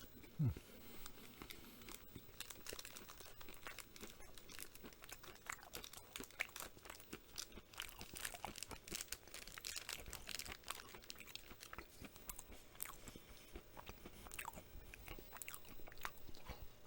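A person chewing a mouthful of Reese's Crunchy Peanut peanut butter cup: quiet, steady crunching of chopped peanuts, with many small crackles. A brief low thump about half a second in.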